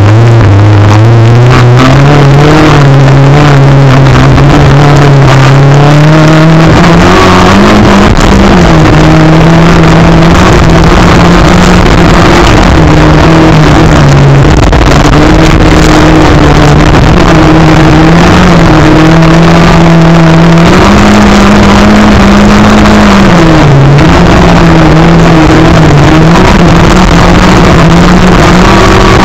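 Rallycross car engine heard from an onboard camera at race pace, loud throughout. It climbs in pitch over the first several seconds, then stays high with short dips and recoveries as the driver lifts and gets back on the throttle through the corners.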